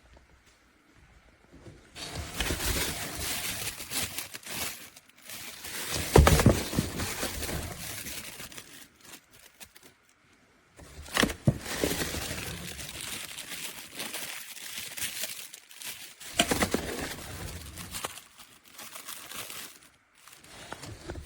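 Irregular crinkling and rustling in several spells, broken by short pauses, with no steady motor sound.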